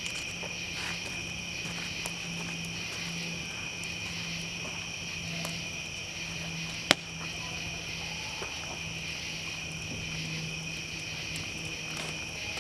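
Steady chorus of night insects, with a wood campfire crackling faintly beneath it and one sharp pop from the fire about seven seconds in.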